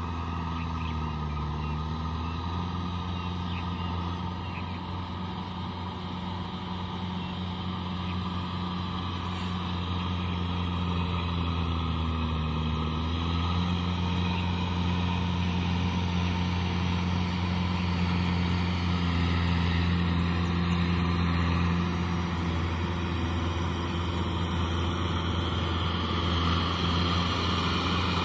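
Kubota tractor's diesel engine running steadily as it pulls a rotavator through a flooded rice paddy, growing louder as it comes closer. Its pitch sags briefly twice, about a second in and again about twelve seconds in.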